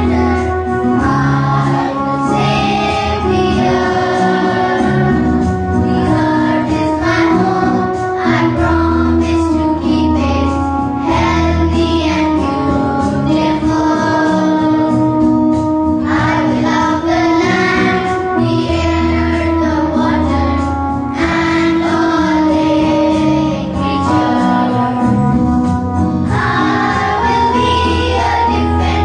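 A group of schoolchildren singing a song together into stage microphones, over a steady instrumental accompaniment with sustained bass notes.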